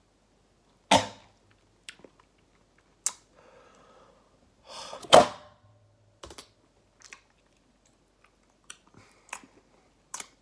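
Takis rolled tortilla chips crunched in the mouth close to the microphone. A handful of sharp, irregular crunches come a second or two apart, the loudest about a second in and about five seconds in.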